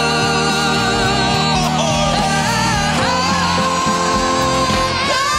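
Two male singers belting a rock song into microphones over band accompaniment with guitar. About three seconds in, they hold one long, high 'ah' note.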